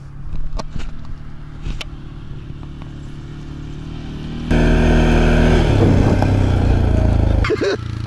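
Quad bike (ATV) engine running: faint and steady at first with a few clicks, then suddenly much louder and close about four and a half seconds in, running on steadily for about three seconds.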